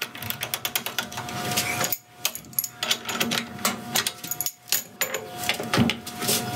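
Milling machine drilling copper bolster stock: a dense, irregular clatter of clicks and knocks over a low machine hum, with a steady tone coming in about two seconds in and again near the end.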